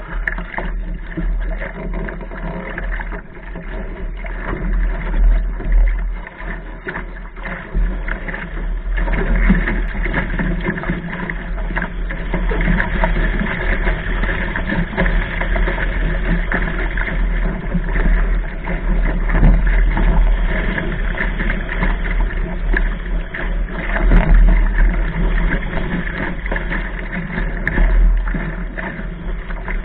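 Wind buffeting the microphone of a camera on a sailing dinghy's bow, a heavy low rumble, with water rushing and splashing along the hull as the boat sails heeled in gusty wind. The noise swells and eases throughout.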